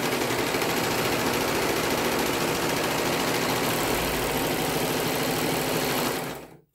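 Brother 1034DX serger (overlocker) running steadily at speed while stitching a seam, then slowing and stopping a little before the end.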